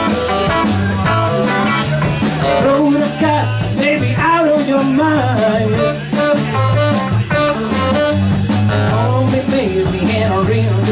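A live blues band playing: tenor saxophone, electric guitar, electric bass and drums, with a melodic lead line bending in pitch over a steady, repeating bass line.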